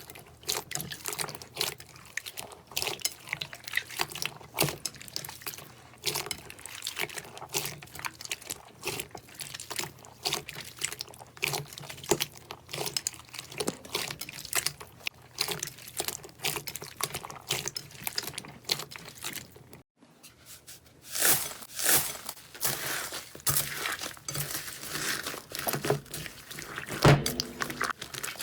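Slime being squeezed and worked by hand, giving a dense, irregular run of small sticky pops and crackles. The sound breaks off briefly about twenty seconds in, then resumes with similar popping.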